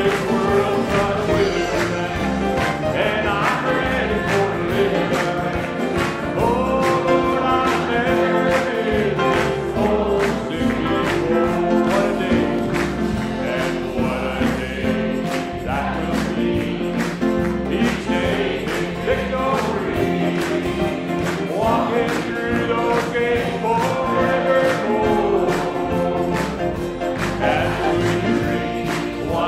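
A church congregation singing a gospel hymn together with a song leader, over instrumental accompaniment with a steady beat.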